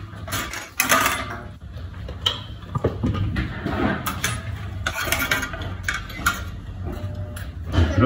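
Irregular clicks, knocks and light rattles of a vintage desk fan's wire guard and painted blades being handled as the propeller is worked free of the guard.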